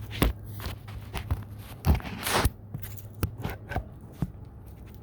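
Scattered sharp knocks and clicks of handling, with a short scrape about two seconds in, over a low steady hum.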